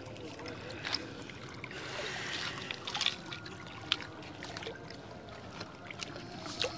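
Shallow seawater lapping and trickling among breakwater rocks, with a few light clicks.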